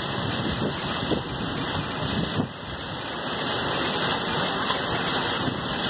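Steady rushing roar of water gushing from a burst large-diameter water supply pipeline, like a waterfall, dipping briefly about halfway through.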